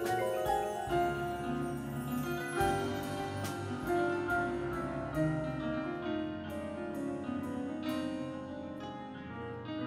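Indoor percussion ensemble playing a classical piano-concerto arrangement: piano and mallet keyboards such as marimbas sound a flowing line of struck, ringing notes, about one or two a second, over held lower chords.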